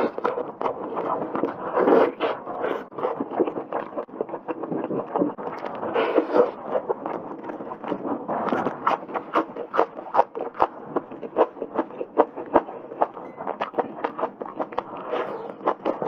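Close-miked chewing of tender spicy stewed bone meat: wet smacking and mouth clicks, several a second, as meat is bitten off the bone and chewed.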